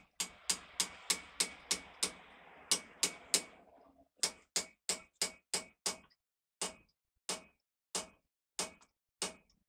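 Hammer striking a long steel drift against a truck wheel hub during a wheel-bearing and oil-seal replacement. The blows are sharp and ringing, about three a second, and slow to about one every two-thirds of a second after about six seconds.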